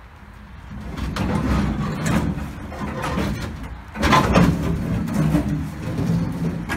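The rusted sheet-metal front clip of a 1952 International Harvester panel van (fenders, grille and radiator support in one piece) being dragged forward off the frame: irregular metal scraping and creaking, loudest about four seconds in.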